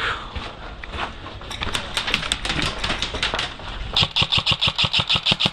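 Airsoft rifle firing on full auto: a rapid burst of clicking shots about a second and a half in, then a louder, very even burst of about ten shots a second that stops abruptly.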